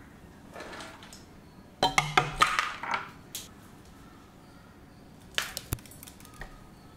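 Cashew nuts tipped from a plastic lid into a steel mixer-grinder jar: a quick run of clicks and taps about two seconds in. A few more sharp clicks follow a few seconds later as a green chilli is broken over the jar.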